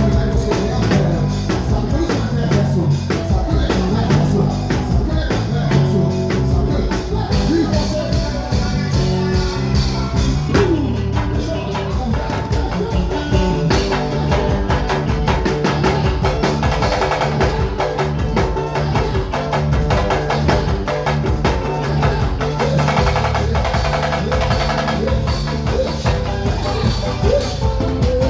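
Loud music with drums and percussion, and some singing.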